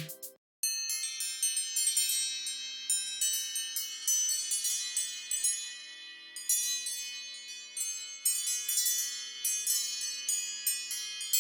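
An iPad ringtone of bell-like chimes, starting about half a second in: many high struck notes with long ringing tails, overlapping in an uneven pattern like wind chimes.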